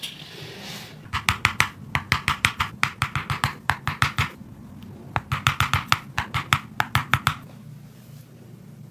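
Hands striking a person's body in quick percussive massage: two runs of sharp slapping taps, about five or six a second, each lasting about three seconds.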